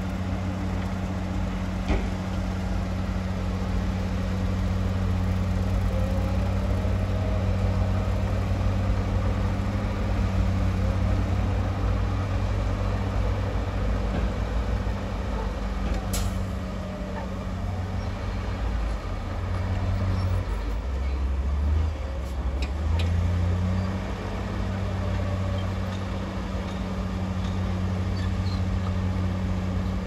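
Heavy diesel engine of earthmoving machinery running steadily, its note shifting briefly a little past two-thirds of the way through, with a couple of sharp clanks.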